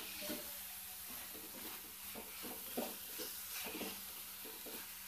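Spatula stirring and scraping onion-tomato masala frying in oil in a kadhai, over a faint sizzle. A few short scrapes stand out between about two and four seconds in.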